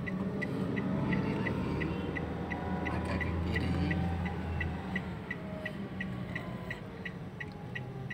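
A car's turn-signal indicator ticking steadily, about three clicks a second, with the manual car's engine running underneath; the engine is loudest for the first four or five seconds as the car pulls away, then eases off.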